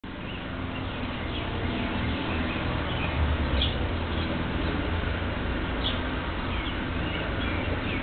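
Small birds chirping in short, scattered calls, a couple of them sharper, over a steady low rumble.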